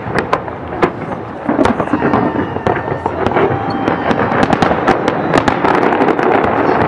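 Fireworks display: aerial shells bursting one after another over dense crackling, a continuous volley that gets louder and busier about a second and a half in.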